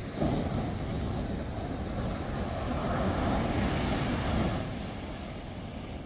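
Atlantic surf: waves breaking and washing up the beach, with wind on the microphone. The wash rises suddenly just after the start, swells again in the middle and eases toward the end.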